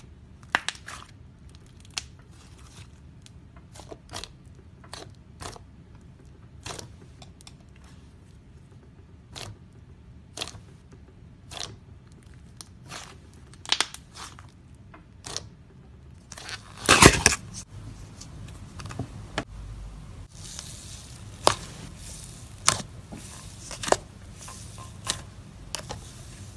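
Thick slime squeezed, poked and pressed by hand, giving irregular sharp pops and crackles, with a louder burst of crackling about seventeen seconds in.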